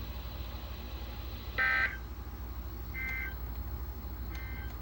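Three short NOAA Weather Radio SAME end-of-message data bursts, buzzy two-tone warbles about a second and a half apart, the first loudest. They signal the end of the severe thunderstorm warning broadcast. A steady low hum runs underneath.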